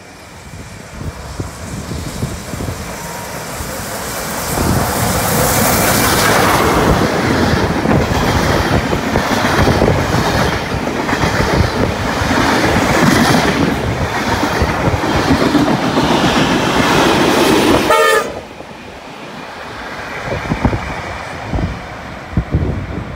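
Steam-hauled heritage passenger train running through the platform at speed: a loud rush of locomotive and carriages with a regular clickety-clack of wheels over rail joints. It builds over several seconds as the train nears, then drops away suddenly near the end as the last carriage passes.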